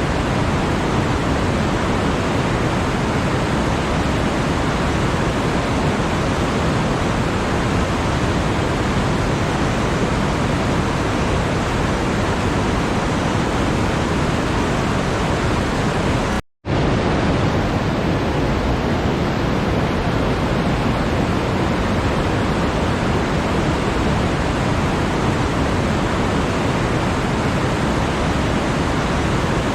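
Steady, even rushing noise, like pink noise, with no pitch or rhythm; it cuts out completely for a fraction of a second about sixteen and a half seconds in.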